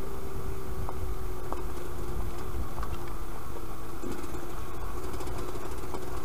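Yamaha DT125 YPVS two-stroke single-cylinder engine running at a steady speed over a low rumble, with a few light ticks.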